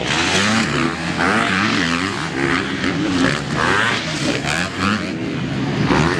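Motocross dirt bikes racing: several engines revving up and down as the riders accelerate and shift, with one bike close by at the start.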